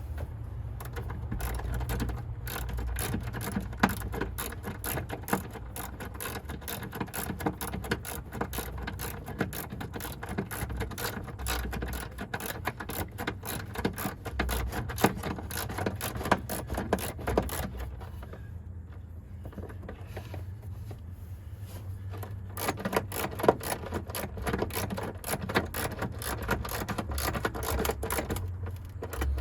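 Ratchet wrench clicking rapidly as truck battery terminal bolts are screwed back in. It comes in two long runs with a pause of a few seconds between them.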